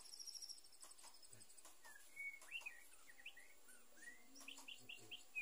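Faint chirps and short slurred whistles of a female white-rumped shama, scattered from about two seconds in, with a quick run of chirps near the end. These are a female's lure calls, used to excite a male shama into breeding condition.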